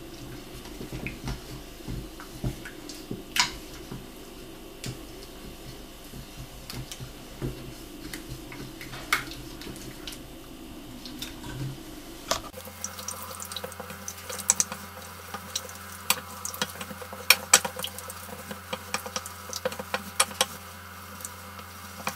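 Wooden spoon stirring a runny chocolate mixture in a stainless steel saucepan: wet sloshing with many light knocks and scrapes of the spoon against the pan's sides, coming more often in the second half.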